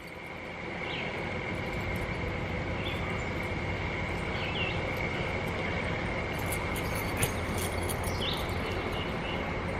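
Steady outdoor background rumble and hiss that fades up over the first second or two and then holds, under a thin steady high-pitched whine, with a few short bird chirps scattered through.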